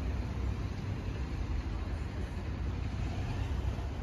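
Steady low outdoor background rumble with no meowing.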